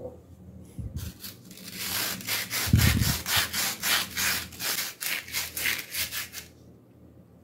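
Sandpaper rubbed by hand along a rusty steel twist drill bit in quick back-and-forth strokes, scouring off the rust. There is a low thud of handling about three seconds in.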